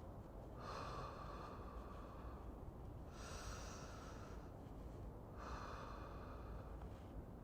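Slow, even breathing close to the microphone, three breaths about two and a half seconds apart, like a person falling asleep. A steady low background rumble runs underneath.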